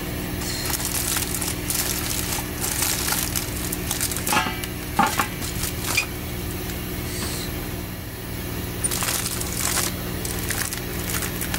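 Aluminium foil crinkling and rustling in bursts as a baked cake is lifted out of its metal baking tin in the foil liner, with a couple of light knocks about four to five seconds in. A steady low hum runs underneath.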